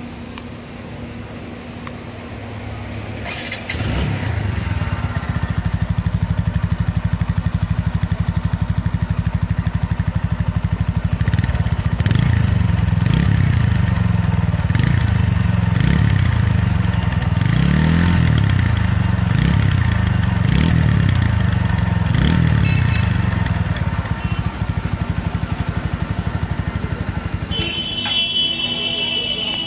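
TVS Apache RTR 160 4V's single-cylinder four-valve engine and exhaust, idling steadily, then louder, then revved up and down several times in quick blips. A steady high-pitched tone sounds for about two seconds near the end.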